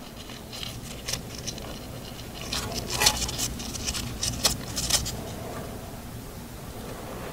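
Hand tools being handled at a car's wheel hub: a scatter of light metallic clicks and scrapes, thickest a few seconds in.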